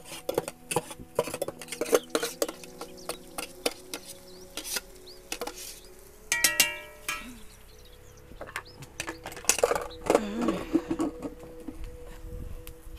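Spoon knocking and scraping chopped spice paste out of a stainless-steel hand food chopper bowl: a quick run of metallic clinks and knocks, densest in the first few seconds, then scattered knocks.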